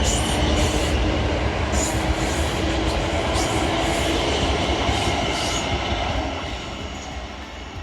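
A Class 450 electric multiple unit running through the station, with a steady high whine and scattered wheel clicks over the rail joints. Its noise fades over the last two seconds as the rear of the train moves away.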